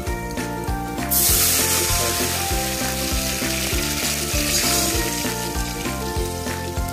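Water poured into a pot of hot ghee and fried whole spices, hissing and sizzling loudly from about a second in and easing near the end, over background music with a steady beat.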